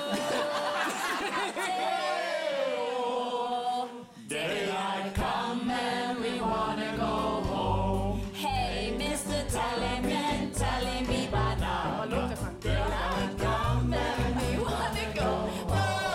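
A song with several singing voices. After a brief break about four seconds in, a heavy bass line and a steady beat come in under the singing.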